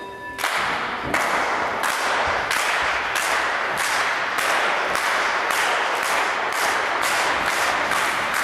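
Audience clapping in unison, about one and a half to two claps a second and getting slightly faster, over a steady wash of crowd noise. At the very start the ringing of a bell dies away.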